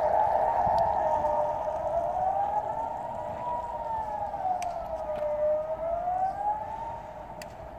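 Civil defence siren sounding a slowly rising and falling wail, the pattern of the Swiss general alarm. It grows steadily fainter toward the end.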